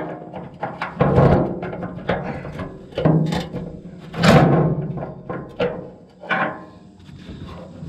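Background music with held low notes and heavy drum hits every second or two.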